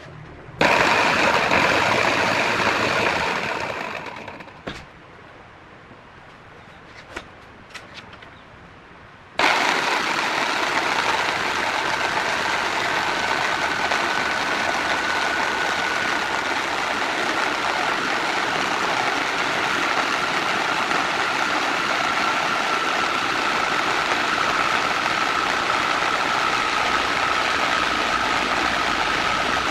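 A power-tool motor switched on, running for about three seconds and then winding down, a few light clicks, then started again about nine seconds in and running steadily, its whine sinking slightly in pitch.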